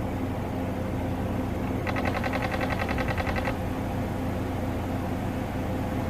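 Broken left door-mirror motor of a Mazda RX-8 clattering in a rapid burst of fine clicks about two seconds in, lasting a second and a half: the motor has failed and rattles while it has power. Under it is the steady low hum of the running car.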